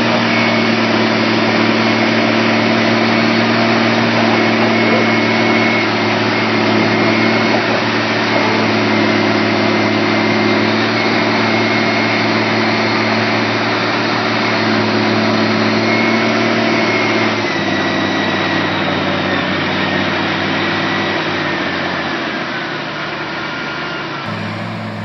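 Caterpillar 966C wheel loader's six-cylinder diesel engine running steadily at close range, with a thin high whine above it. About two-thirds of the way through the engine note drops in steps, and the sound grows somewhat quieter near the end.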